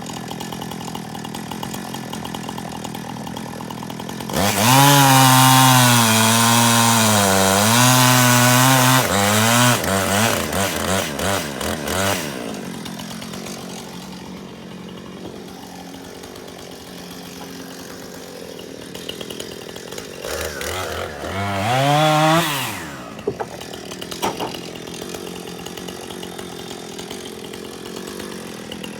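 An engine idling steadily, revved hard about four seconds in for some five seconds with its pitch wavering as if under load, then dropping back to idle. It revs up and falls again briefly around twenty seconds in.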